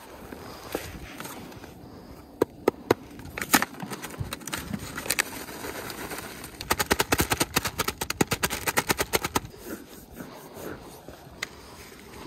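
Plastic zip-top bag crinkling as it is handled while fish fillets are coated in breading mix. A few sharp crackles come first, then a quick run of them lasting about three seconds in the middle.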